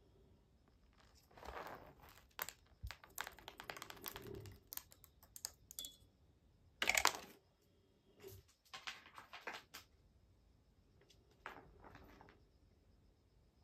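Soft, irregular rustling, scraping and clicking from a cat-teaser wand being swished and dragged about, with one louder rustle about seven seconds in.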